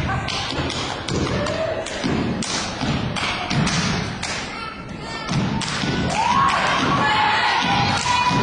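A step team stepping: rapid, rhythmic stomps on the stage floor and hand claps and slaps in quick patterns. Shouted voices rise over the beats from about six seconds in.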